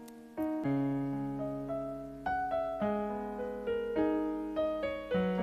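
Instrumental interlude on piano or electric keyboard: gentle notes and chords struck one after another, each fading before the next.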